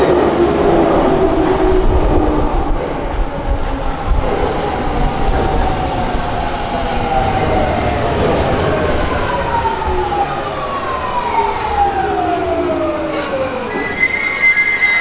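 Electric commuter train's VVVF inverter and traction motors whining, several tones falling steadily in pitch as the train slows under braking. A higher steady squeal comes in near the end.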